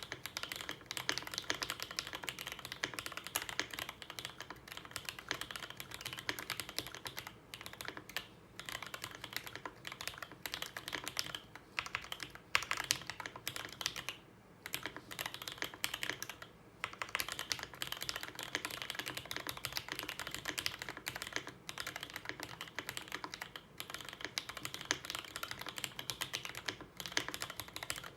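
Typing on a fully modded MonsGeek M1 custom mechanical keyboard: a steady run of rapid keystrokes, broken by a few brief pauses.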